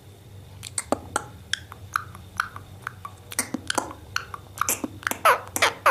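Parrot making a run of short clicks and brief squeaky chirps, several a second, coming thicker in the second half.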